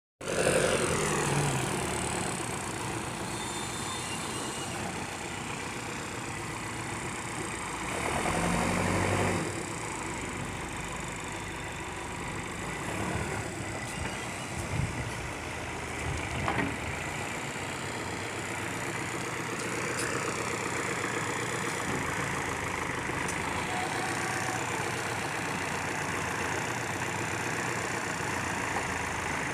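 Bulldozer's diesel engine running steadily, growing louder for a second or so about eight seconds in, with a couple of short sharp knocks partway through.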